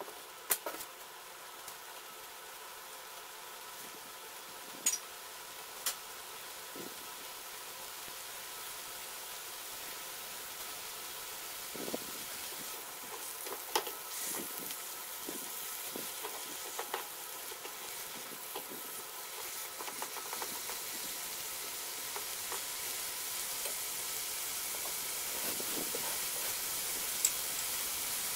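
Carrot strips sizzling in seasoning sauce in a hot frying pan, the sizzle growing slowly louder, with a few sharp clicks as tongs turn the carrots against the pan.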